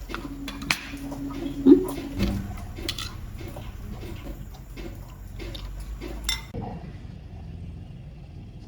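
Clinks and knocks of dishes or utensils being handled, with some liquid sounds, over a low steady hum. The sound turns quieter and duller about two-thirds of the way through.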